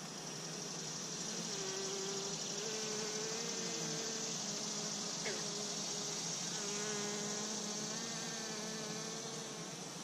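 Honey bees buzzing around an open hive, over a steady hiss. Single bees fly close by with wavering buzzing tones, and one zips past quickly about five seconds in.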